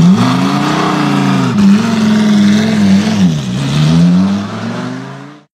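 Car engine revving, its pitch climbing and dropping several times as the car pulls away, fading out near the end.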